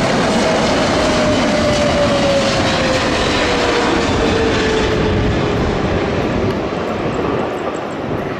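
Boeing 777 jet airliner landing: loud jet engine noise with a whine that falls steadily in pitch over the first six seconds or so as the plane passes, touching down on the runway near the end.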